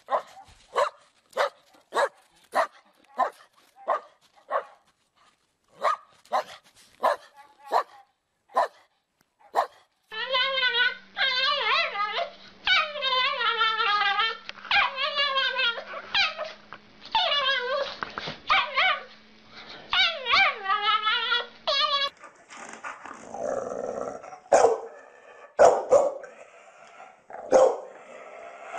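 Dogs barking: first a run of sharp single barks at about two a second, then a dog giving long, wavering, howl-like calls one after another, then more barking with background noise near the end.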